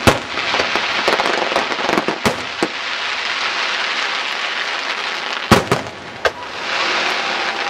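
Fireworks display: aerial shells bursting with about six sharp bangs, some in quick pairs, with a dense crackling hiss between them.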